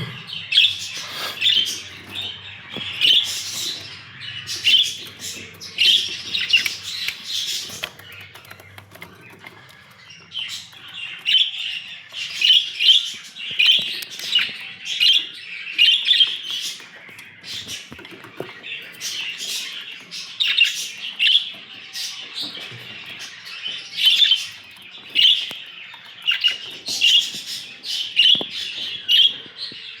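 Budgerigars chirping and chattering, a busy run of short calls with a brief lull about eight to ten seconds in.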